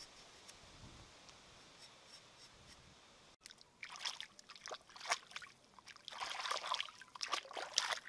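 Water splashing and trickling in irregular bursts, beginning suddenly about three and a half seconds in after a few seconds of faint hiss.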